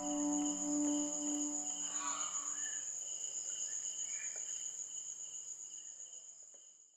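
Insects chirring in a steady high trill that fades out near the end, under the last held notes of soft music dying away in the first two seconds or so.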